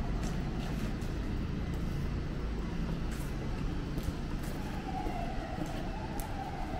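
Steady low city traffic rumble, with footsteps on pavement about once a second. A faint, high, wavering tone comes in about two-thirds of the way through.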